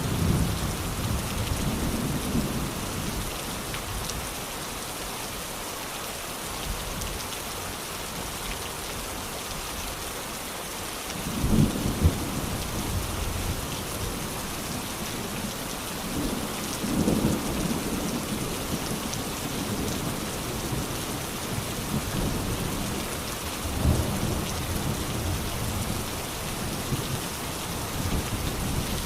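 Steady rain pattering down in a thunderstorm, with three low rumbles of thunder a few seconds apart, the loudest about twelve seconds in.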